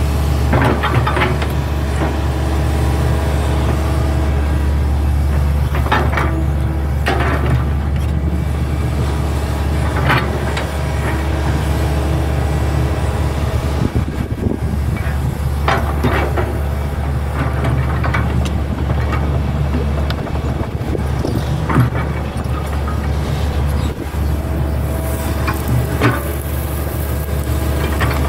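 Hitachi hydraulic excavator working: its diesel engine runs with a steady low drone under digging load, with short knocks and clanks from the bucket and arm every few seconds as it scoops soil.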